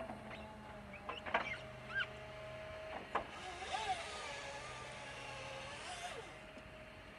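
Diesel engines and hydraulics of two distant excavator-based forestry machines working, a steady drone. A few sharp clunks come in the first three seconds. Then an engine revs up under load for about three seconds, its pitch rising and falling, before settling back.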